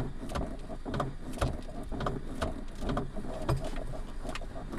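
Suzuki Ignis steering column knocking in a quick irregular series, about two or three knocks a second, as the steering wheel is worked up and down. It is the sign of a worn steering column shaft, which the mechanic says needs replacing as a complete column.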